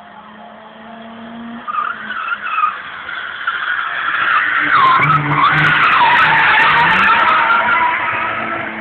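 Car tyres squealing through a drift over the running engine; the squeal wavers up and down in pitch, builds from about two seconds in, is loudest in the second half and eases near the end.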